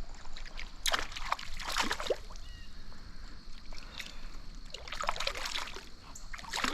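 Water splashing in two spells, about a second in and again about five seconds in, as a small brook trout hooked on the line thrashes at the surface, over the steady rush of a trout stream.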